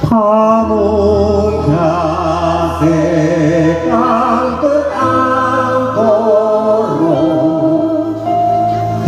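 A man singing live through a PA system over sustained instrumental chords, his voice wavering in pitch with ornamented, melismatic turns.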